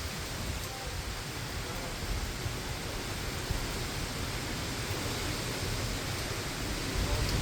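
Heavy rain and wind of a severe thunderstorm as a steady hiss, with gusts rumbling on the microphone that grow stronger near the end.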